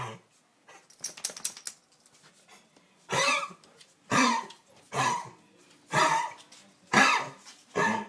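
An animal coughing harshly over and over. One cough comes right at the start, then a brief rattle of clicks about a second in, then a steady run of six coughs about one a second from about three seconds in.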